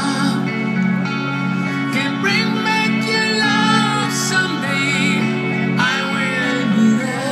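Music: a song with a singing voice over guitar and sustained instruments.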